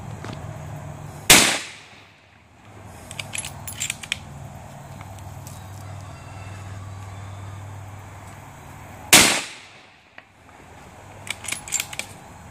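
Two shots from a Savage Model 12 bolt-action rifle in .223 Remington, about eight seconds apart, each a sharp crack that dies away in under a second. A second or two after each shot comes a quick run of small metallic clicks as the bolt is worked to eject and chamber a round. A low steady hum runs underneath.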